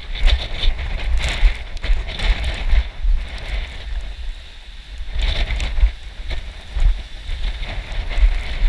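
Heavy wind buffeting the microphone while running, with irregular crunching footsteps on a rocky gravel path. The wind eases briefly about four to five seconds in.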